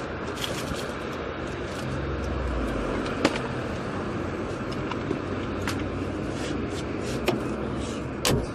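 Steady hum of road traffic, swelling as a vehicle passes about two seconds in. A few sharp clicks sound over it.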